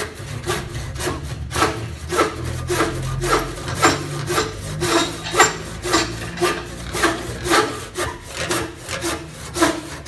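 Dexter 500 mm handsaw with 8 teeth per inch and triple-ground teeth cutting through a pitanga (Surinam cherry) branch, in quick, even back-and-forth strokes of about two to three a second.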